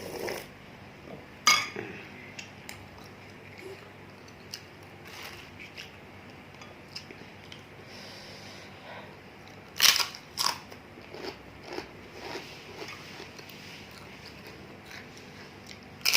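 A person eating bakso close to the microphone: chewing and biting, with a few sharp clinks, the loudest about one and a half seconds in and twice around ten seconds in.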